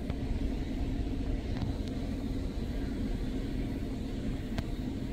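Steady low rumble of the kind that running vehicles or machinery make, with a few faint clicks.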